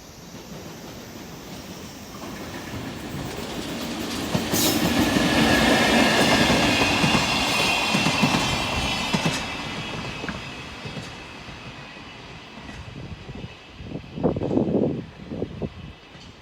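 A freight train hauled by an electric locomotive passes by. It grows louder to a peak about five to nine seconds in, with a high whine or squeal, then fades. Near the end come irregular clacks of the wagon wheels crossing rail joints.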